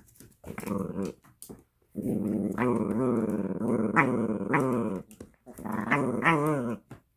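Italian greyhound play-growling while tugging a plush toy, a rumbling growl that wavers up and down in pitch. It comes in three bouts: a short one near the start, a long one of about three seconds, and another near the end.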